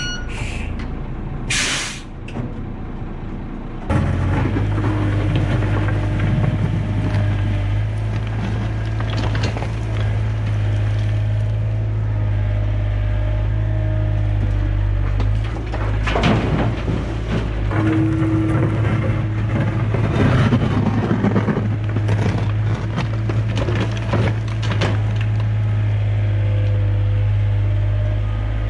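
Yanmar B37 mini excavator's diesel engine throttled up about four seconds in and running steadily under load while it digs dirt and leaves and swings them into a dump truck, with scraping and clunks from the bucket. Near the start the dump truck's air brake gives one short hiss as it is set after reversing.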